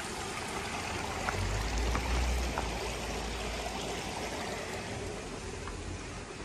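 Water trickling steadily in a courtyard fountain and its stone channel, with a brief low rumble about a second and a half in.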